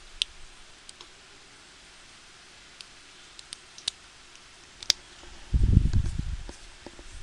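Scattered single clicks from computer input devices, a second or so apart. Near the end comes a low, muffled rumble lasting about a second, the loudest sound.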